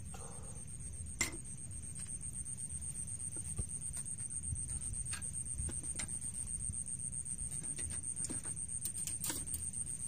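Scattered clicks and knocks of a fishing rod, reel and a freshly landed fish being handled, the loudest a sharp knock about a second in, over a steady high-pitched whine and a low rumble.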